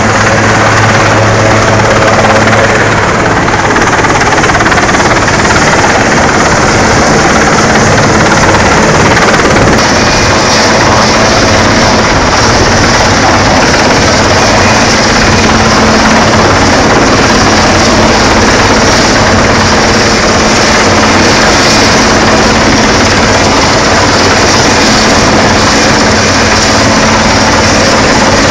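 Coast guard helicopter hovering low overhead, its rotor and engine noise very loud and steady.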